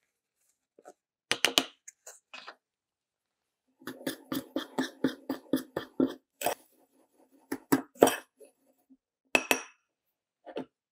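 A metal spoon stirring sugar in a small bowl, clinking quickly and evenly against the bowl's side, with a few louder single clinks as it is tapped on the rim and set down near the end. A short cluster of clinks about a second in comes from a small cup knocking the bowl as powder is tipped in.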